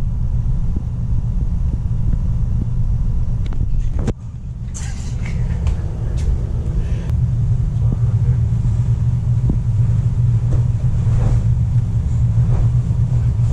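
Steady low rumble of a car driving, with a short break about four seconds in after which it builds back up.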